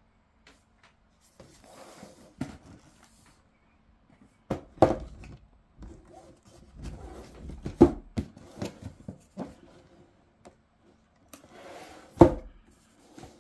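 Cardboard shoebox being handled and opened: irregular knocks of cardboard against the table and hands, with rubbing and sliding of the lid and inner sleeve between them.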